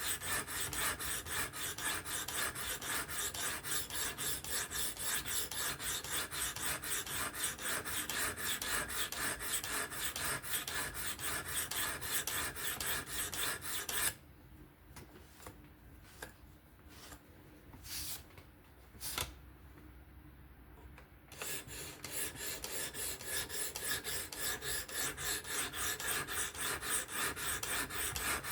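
Knife edge being sharpened on a Work Sharp Professional fixed-angle sharpener: rapid, even back-and-forth scraping strokes of the abrasive along the Spyderco Kapara's S30V blade. The strokes stop about halfway through for some seconds, leaving a few light clicks, then start again.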